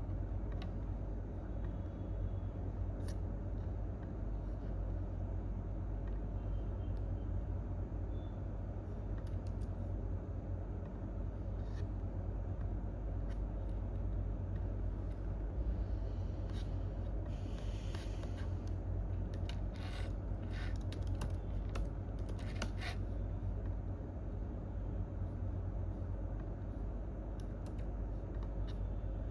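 Office room tone with a steady low hum, and scattered computer keyboard key clicks. A short flurry of keystrokes comes about two-thirds of the way through.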